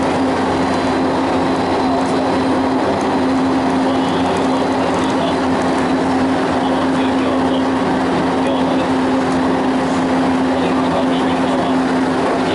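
Steady running noise inside the cabin of a JR Special Rapid electric commuter train at speed: an even rushing noise with a constant low hum under it.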